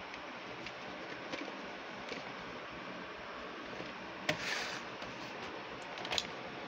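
Plastic VHS tape cases being handled and turned over in the hand: faint ticks and clicks over a steady hiss, with a brief scrape of plastic about four seconds in.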